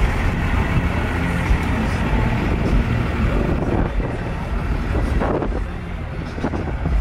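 Engine of a Dodge dually pickup running as the truck rolls slowly past, a low steady rumble.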